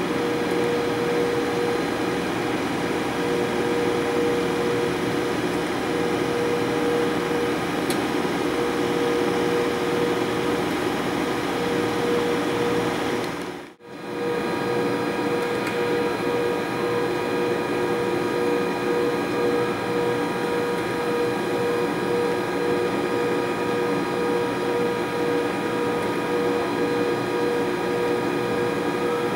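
A British Rail Class 92 electric locomotive standing with its on-board equipment running: a steady electrical hum made of several held tones, one low tone the strongest. The sound cuts out for a moment about halfway through.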